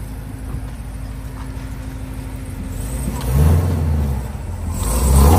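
Supercharged V8 of a 2020 Camaro ZL1 fitted with headers, rumbling at low speed as the car rolls. It then revs up twice: once about three seconds in, and again, louder, near the end.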